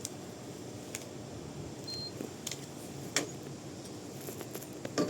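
A few sharp clicks and knocks from handling at a card-operated smart bike lock station, the loudest near the end, with one short high electronic beep about two seconds in.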